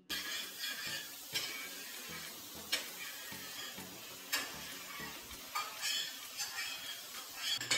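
Eggs sizzling in a stainless steel frying pan while a spatula stirs and scrapes them, with sharp clinks of the spatula against the pan every second or so.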